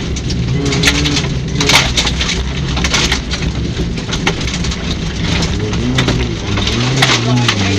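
Rally car on a gravel stage: the engine runs with its pitch rising and falling while loose stones crackle and clatter against the car.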